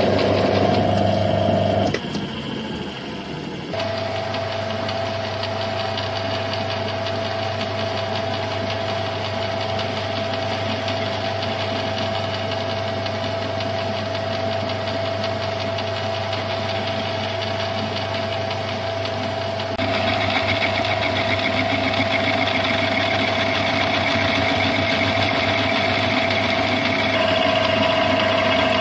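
Metal lathe running, its motor and gearing giving a steady hum with a constant whine, while a ball-turning attachment cuts a sphere on the bar. About two seconds in the sound drops and its pitch slides briefly. From about twenty seconds in it is louder, with added high tones.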